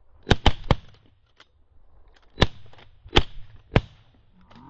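Shotguns fired by several hunters: three quick shots close together about a third of a second in, then three more single shots spread over the next few seconds, with a few fainter shots between.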